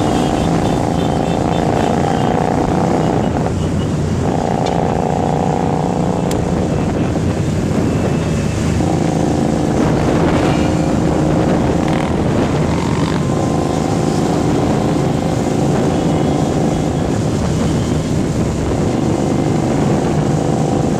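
Motorcycle engine running while riding along, heard from the bike itself. The steady engine note breaks off briefly and comes back at a new pitch about three times.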